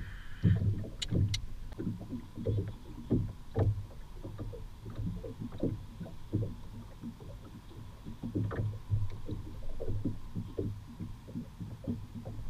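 Water lapping and slapping against the hull of a small skiff: irregular low knocks every fraction of a second, with a couple of sharp clicks about a second in.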